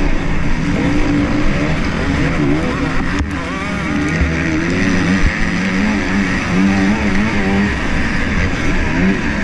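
Motocross bike engine racing on a dirt track, its pitch rising and falling as the rider opens and closes the throttle through the gears, with other bikes close by.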